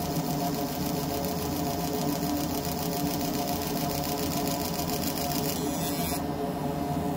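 Fiber laser engraver's galvo scanner buzzing steadily as it sweeps the beam over one shape again and again. The buzz is pitched, with a fast, even high chatter on top. Near the end the high chatter changes and then cuts out while the lower hum carries on.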